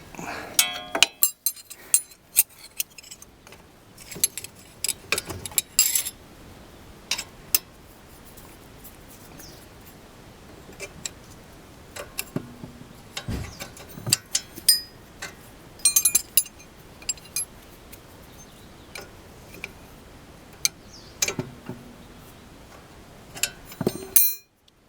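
Steel spanners clicking and clinking against each other and the brake caliper while the lower guide-pin bolt of a car's front brake caliper is being loosened: irregular sharp metallic clicks. The sound cuts off abruptly near the end.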